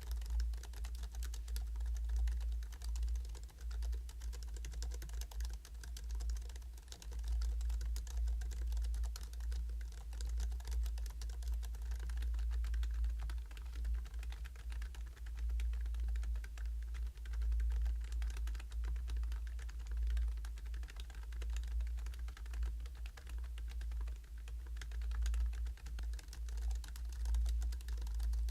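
Continuous typing on a Hansung GK698 OfficeMaster low-noise pantograph (scissor-switch) keyboard, a fast irregular patter of soft keystroke clicks, over a constant low hum.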